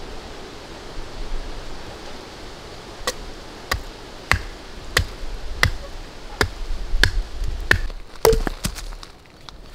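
A large blade chopping into a length of wood held upright: about ten sharp chops at a steady pace, roughly three every two seconds, starting about three seconds in, over an even background hiss.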